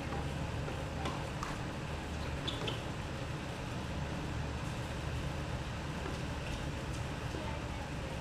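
Steady low outdoor rumble, with a few faint short knocks about a second in, around two and a half seconds and again near the end.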